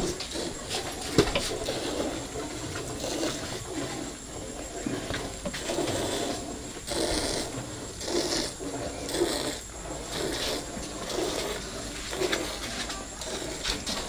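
Hand milking: squirts of milk from a cow's teats hitting the froth in a half-full steel bucket, in a steady rhythm as the hands strip the teats.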